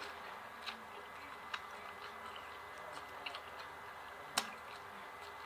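Faint eating sounds: a few scattered soft clicks and mouth smacks while chewing, the loudest about four and a half seconds in.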